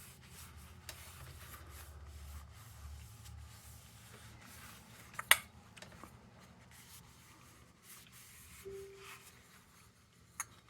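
Faint rubbing and handling sounds of metal lantern parts being cleaned, with one sharp click about halfway through and a lighter click near the end.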